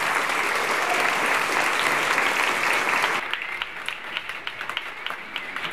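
Large audience applauding in a standing ovation at the end of a speech, dense and loud at first. About three seconds in it drops suddenly to thinner, separate claps.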